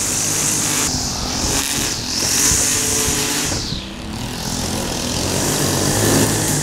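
Small petrol lawn-care engines running: a steady low drone under a high whine that rises and falls several times.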